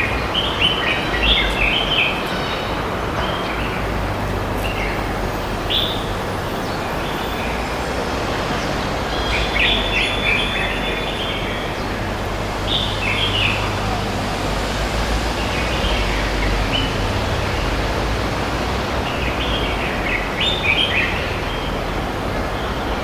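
Park ambience: birds chirping in short clusters of calls every few seconds, over a steady background hiss and low rumble.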